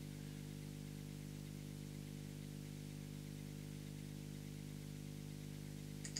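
Steady low electrical hum under a faint hiss, with a faint click at the very end.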